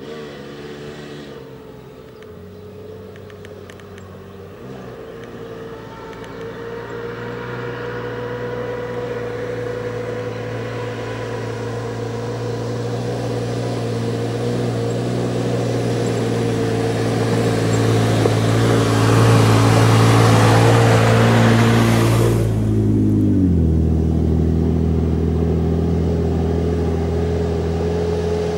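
Off-road SUV's engine pulling up a gravel track, growing steadily louder as it approaches, with tyre and gravel noise as it comes close. Near the end the engine note drops suddenly to a lower pitch.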